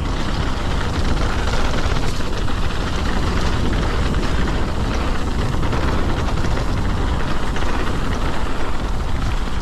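Mountain bike riding fast down a dirt trail: tyre roar and wind rushing over the camera's microphone make a loud, steady rumbling rush.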